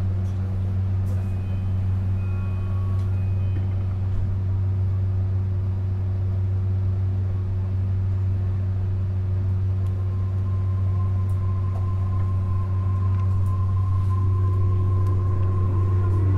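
Steady low hum inside a Tokyo Monorail 10000 series car, with a thin whine coming in about ten seconds in and the sound growing a little louder near the end.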